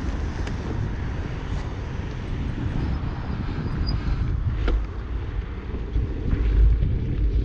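Wind rumbling on the microphone of a bicycle-mounted camera while riding along an asphalt path, with a couple of light clicks, one about half a second in and one nearer five seconds in.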